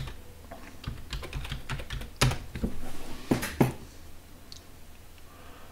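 Typing on a computer keyboard: a run of key presses with a few louder strikes, stopping a little after three and a half seconds in.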